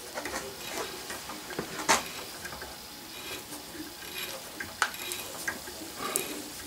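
A tap turned by hand in a tap handle, cutting threads in a drilled hole in aluminum plate: faint, uneven scraping and creaking, with a couple of sharp clicks, about two seconds in and again near five seconds.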